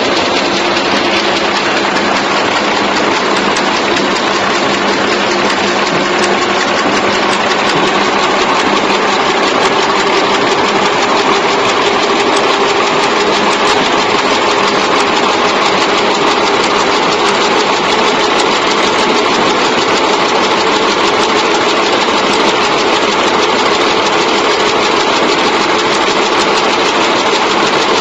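Automatic chewing gum wrapping machine running at speed: a steady, rapid mechanical clatter over a constant hum.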